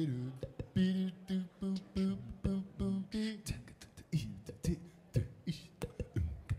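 Beatboxing through a PA: sharp vocal clicks and snaps mixed with a short, low sung bass note that repeats about three times a second through the first half, then mostly clicks and pops.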